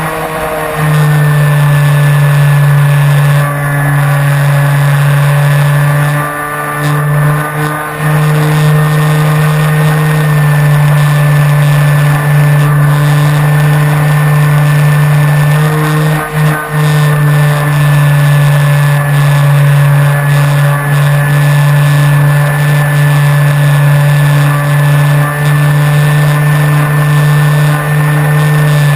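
Flyzone Switch RC plane's electric motor and propeller running steadily, heard from a camera mounted on the plane: a loud, even drone that dips briefly near the start, around 6 to 8 seconds in and again around 16 seconds in as the throttle eases off.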